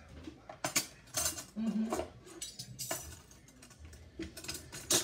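Dishes and cutlery clinking and knocking against each other as they are handled and washed, a series of separate clinks.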